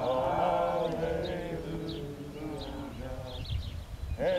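Congregation singing a hymn together. A long held note fades after about a second, the singing stays softer through the middle, and the next phrase begins just before the end.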